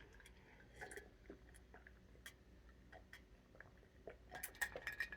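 Faint chewing and wet mouth clicks close to the microphone while eating, the small clicks growing denser near the end.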